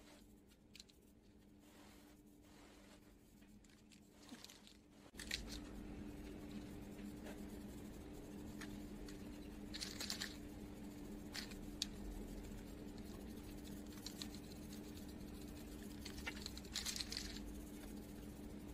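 Aerosol spray paint can hissing in short bursts of about half a second, twice, over a faint steady low hum that starts about five seconds in.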